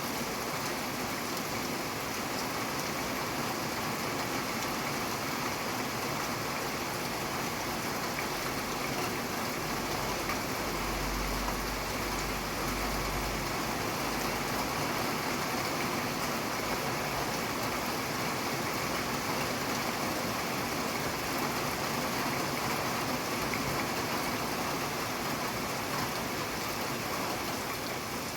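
Steady rain falling, an even hiss of drops on surfaces, with a brief low rumble about halfway through.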